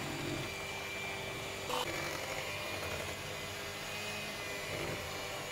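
Electric hand mixer running steadily, its two beaters whirring through thick spinach cake batter in a plastic bowl.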